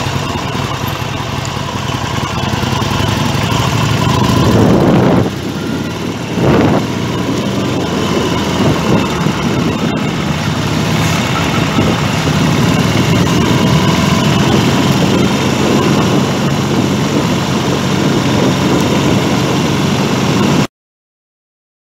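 Harley-Davidson XL1200T Sportster SuperLow's 1200 cc V-twin engine running steadily while the bike is ridden along the road. The engine sound dips briefly about five seconds in and cuts off suddenly near the end.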